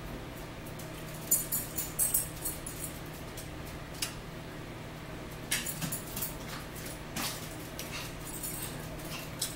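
Close-up eating sounds: wet mouth smacks and small clicks of a spoon against a bowl, in two bursts, over a steady low hum in the room.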